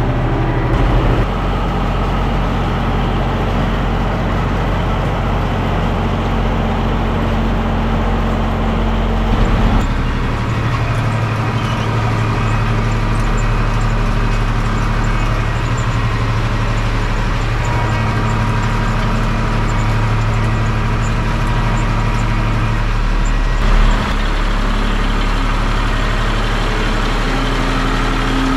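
Zetor 5211 tractor's three-cylinder diesel engine running steadily. Its note shifts three times, each time with a brief swell in loudness.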